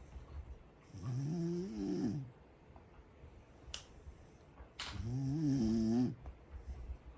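A corgi snoring loudly: two drawn-out snores about four seconds apart, each lasting about a second with a wavering, whining pitch, and soft low puffs of breath between them. Two faint clicks fall just before the second snore.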